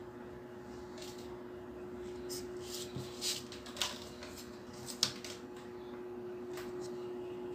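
Drafting tools handled on paper: a ruler set aside, short pencil strokes, and a drawing compass picked up, giving a scatter of light scratches and clicks, the sharpest about five seconds in. A steady low hum runs underneath.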